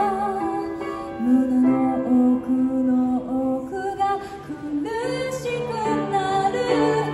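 A woman singing into a microphone, accompanied by a grand piano. She holds notes with a light vibrato.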